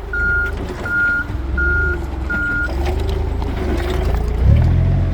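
Forklift backup alarm beeping while reversing, four evenly spaced beeps that stop just under three seconds in, over the forklift's engine running, its note climbing near the end.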